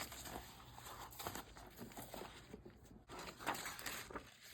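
Sheets of paper rustling and crinkling as they are handled, with a louder rustle about three and a half seconds in.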